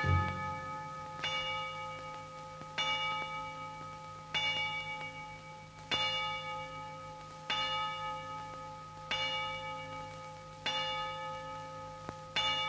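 Tower clock bell striking the hour: nine strokes, about one every second and a half, each ringing on into the next, over a low steady drone.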